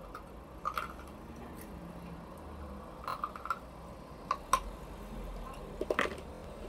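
Ice cubes crunched between the teeth close to the microphone: a handful of sharp, separate cracks scattered through a few seconds, with quiet chewing between them.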